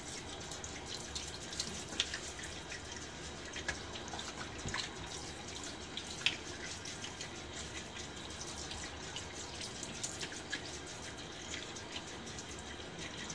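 Bathroom tap running into the sink while water is scooped and splashed onto the face to rinse off shaving lather, with small splashes and drips throughout.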